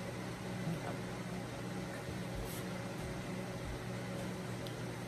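Steady low hum with an even hiss of room noise, broken by a couple of faint short clicks.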